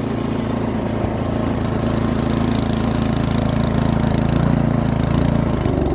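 A Yard Machines snowblower's 179cc Powermore single-cylinder engine runs steadily on its primer charge at full throttle and choke, then winds down and dies near the end. It starts and stalls like this when it has spark but needs its carburetor cleaned.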